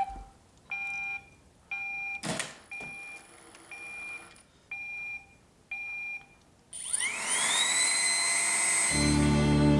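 Roomba robot vacuum beeping six times, about once a second, with a brief whoosh between the second and third beeps. Near the seven-second mark its motor whines up in pitch and settles into a steady run.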